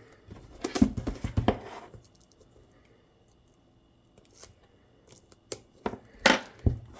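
An album's packaging being handled and opened by hand: a burst of rustling and clicks, a quiet stretch, then several sharp clicks and snaps near the end.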